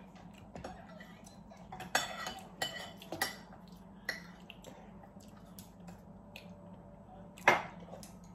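Chopsticks and utensils clicking and clinking against bowls and takeaway containers while eating, a handful of scattered clinks with the loudest near the end.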